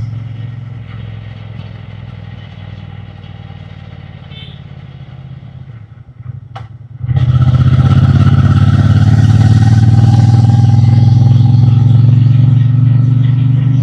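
Triumph Bonneville T120's 1200 cc parallel-twin engine and exhaust, running at low throttle for the first half, then opening up suddenly about halfway through and pulling loud and steady under throttle for several seconds before easing off near the end.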